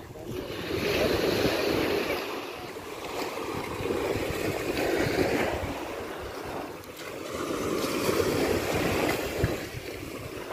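Gentle surf washing on a sandy shore, mixed with wind buffeting the microphone. The sound swells and fades about every three seconds.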